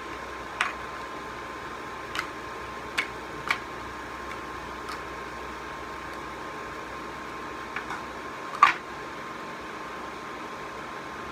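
A covered pot of chicken heating toward a boil: a steady hum and hiss with a faint high whine, broken by about seven sharp pops or ticks, the loudest about three-quarters of the way through.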